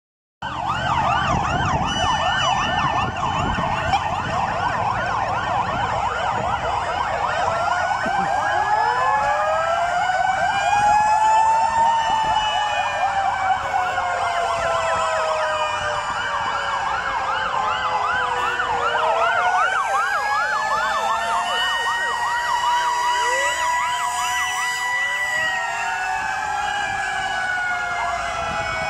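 Many sirens from a convoy of fire trucks and escort motorcycles sound at once: fast yelping warbles overlap slower rising and falling wails. The wails become more prominent from about eight seconds in.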